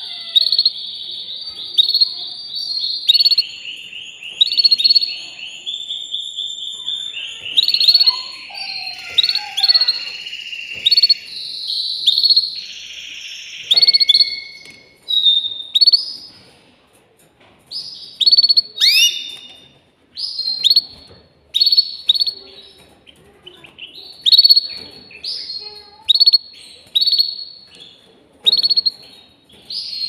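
Canary singing high, rapid trills and rolls. The song runs almost unbroken for the first half, then breaks into short phrases with brief pauses.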